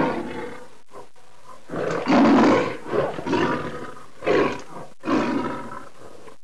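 Lion roaring, a sound effect: a string of loud roars and grunts about a second apart, the biggest about two seconds in.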